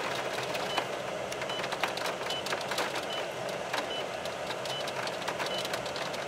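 A short, high electronic beep repeating evenly about every 0.8 seconds, like a vehicle's warning chime, over a steady rushing noise with scattered sharp ticks.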